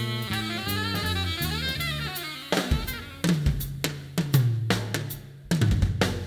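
Live band music: a saxophone-led melody over bass notes. About two and a half seconds in, the melody drops out and a drum kit takes a loud break of tom and snare strokes, bass drum and cymbal hits.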